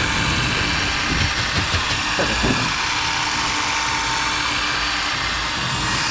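Steady mechanical drone of machinery running, with a few dull knocks about one to two and a half seconds in as the seized ball-lift wheel is worked on its shaft.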